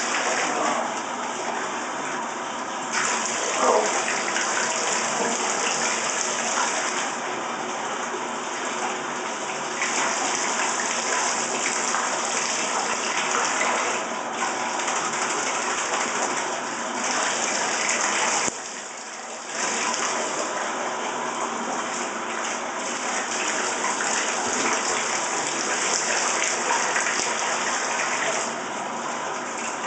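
Bath tap running steadily into a tub where a wet dog is being rinsed. The splash shifts in tone every few seconds and drops away for about a second about two-thirds of the way through.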